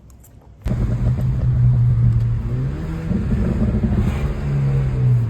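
A vehicle engine running, cutting in abruptly under a second in, with its pitch rising briefly about three seconds in and then dropping back, like a short rev.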